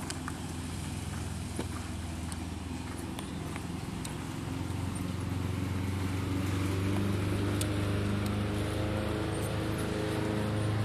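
A motor vehicle's engine running steadily nearby, a low hum that grows louder from about halfway through.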